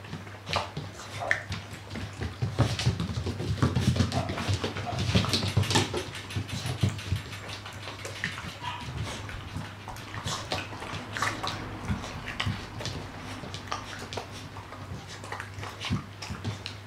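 Two Kooikerhondje puppies eating dry kibble from stainless-steel bowls: a busy run of crunching and small clicks as they chew and nose the bowls, heaviest a couple of seconds in. A steady low hum runs underneath.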